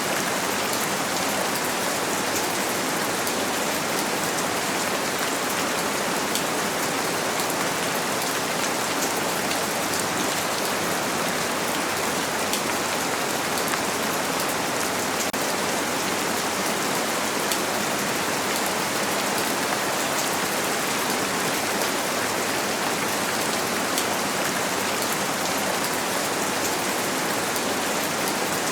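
Steady rain falling on a window pane: an even hiss with many small drop ticks, unchanging throughout.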